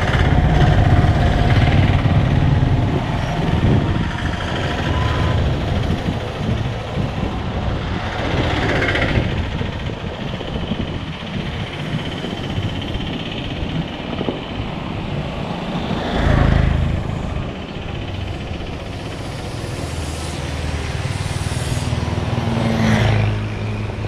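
Street traffic: motor vehicles running close by, with a steady engine rumble and several vehicles passing one after another, about a third of the way in, two-thirds of the way in and near the end.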